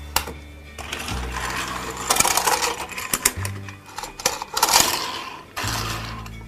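Plastic clicking and rattling of a Chuggington StackTrack toy train set worked by hand: the Wilson locomotive is rolled along the plastic track onto the turntable and the turntable is turned. Background music with a steady bass line plays underneath.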